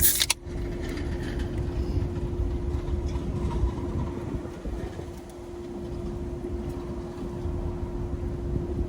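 Steady low rumble of a car's engine running inside the cabin, with a constant hum. A short sharp sound comes right at the start.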